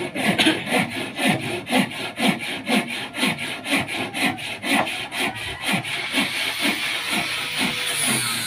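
Hand saw cutting through a small block of wood in quick, even back-and-forth strokes, about three a second.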